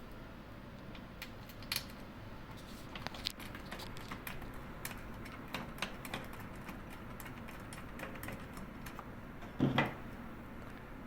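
Scattered light clicks and taps of a socket wrench and small metal parts as a hex head nut is refitted on a chocolate refiner's tilt lock mechanism, with one brief louder knock near the end.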